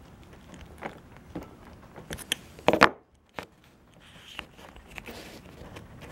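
Hard plastic parts of a replacement cord-end plug clicking and scraping as they are pressed together by hand, in scattered small clicks with one louder click a little under halfway through.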